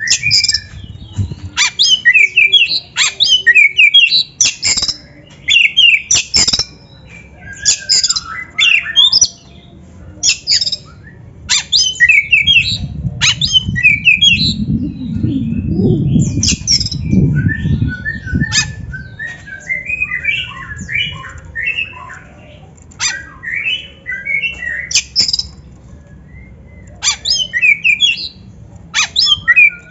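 Oriental magpie-robin (kacer) singing loud, varied phrases of quick whistled and harsh chattering notes with short pauses between them. A low rumble sits under the song in the middle.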